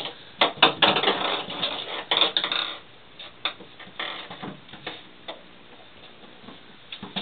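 Ping pong ball clicking and clattering against a bathtub as kittens bat it around, with a run of sharp taps in the first few seconds and only a few faint ones later.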